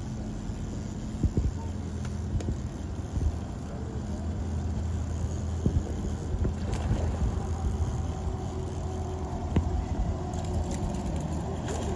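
Boat outboard motor idling steadily, a low even hum, with a few short light knocks scattered through.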